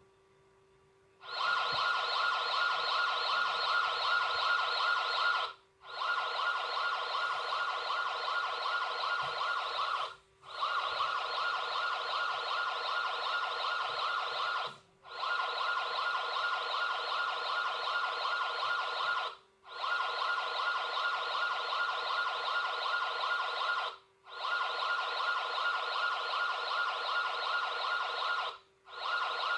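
Emergency alert siren sounding in steady-pitched blasts of about four seconds each, broken by short gaps; it starts about a second in and repeats seven times.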